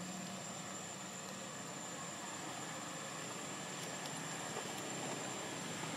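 Steady outdoor background noise: an even hum and hiss with a thin, continuous high-pitched whine.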